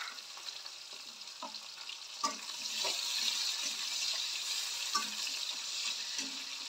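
Potato cubes, onion and garlic sizzling in hot refined vegetable oil in a kadai and being stirred with a spatula. The sizzle grows louder about two seconds in as the pieces are turned, with a few sharp clicks of the spatula against the pan.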